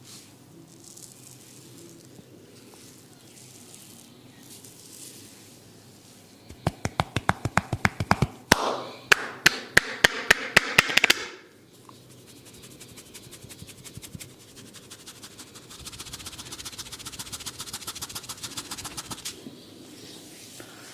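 Head-massage tapping by a barber: a loud run of sharp, evenly spaced taps on the head, about five a second, for some five seconds in the middle, followed later by lighter, faster patting.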